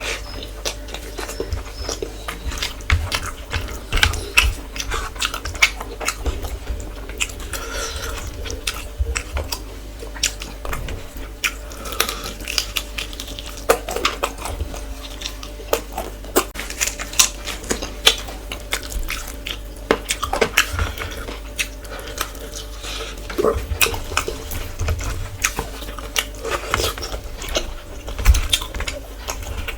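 Close-up eating sounds of rice and fish curry being chewed: wet, irregular mouth clicks and smacks, over a steady low hum.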